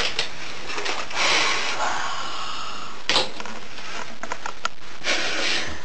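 Electric hair clippers running steadily while shaving hair off a head, louder for a moment about a second in and again near the end, with one sharp click about three seconds in.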